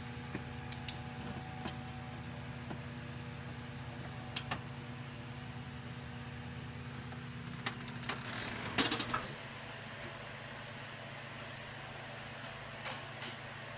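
Metal parts and hand tools clinking as a harmonic balancer puller is fitted to a crankshaft pulley, with scattered light clicks and a short burst of rattling about eight to nine seconds in, over a steady low hum.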